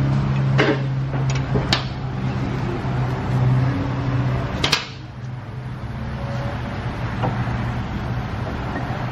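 A few sharp metal clicks as brake pads and their hardware are fitted into a StopTech Trophy four-piston brake caliper. A steady low machine hum runs underneath and drops to a fainter level about halfway through.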